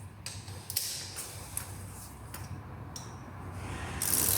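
Hand tools clicking and creaking at the engine's spark plug holes as the plugs are being worked on, with a louder rasping sound starting near the end.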